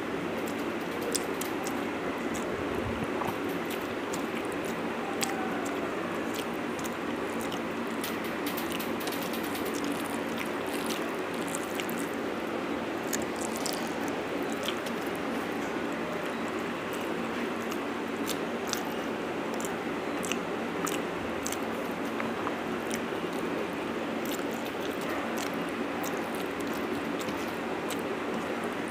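Close-miked eating by hand: fingers squishing and mixing rice and fish on a steel plate and mouthfuls being chewed, heard as many small wet clicks over a steady background hiss.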